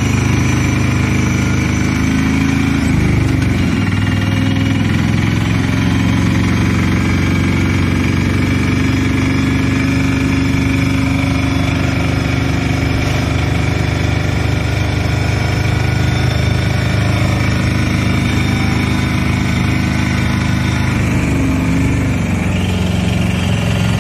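A motor vehicle's engine running steadily and loudly, a low hum with several steady tones; its pitch shifts briefly about three seconds in and again near the end.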